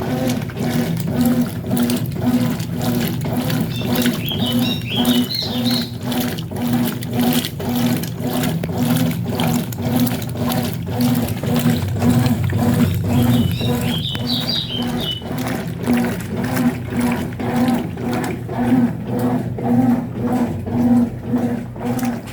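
Consul CWS 12 AB top-loading washing machine in its wash stage, agitating a load of towels. The motor hums in regular strokes, about one and a half a second, while water sloshes back and forth.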